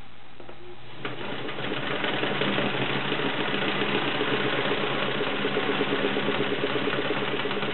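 Kenmore model 1422 all-metal sewing machine starting up about a second in and running steadily at speed, sewing a stretch stitch with a fast, even clatter. The hook and race mechanism is a little loud, which the owner puts down to the hook and the fit of the bobbin case.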